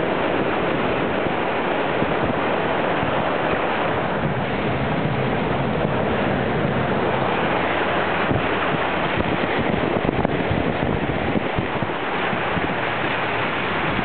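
Steady rushing of water around a car driving through deep floodwater, with a few slightly louder splashes about ten seconds in.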